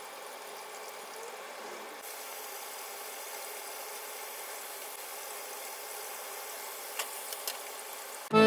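Steady hiss-like background noise with a couple of faint clicks about seven seconds in; music starts right at the end.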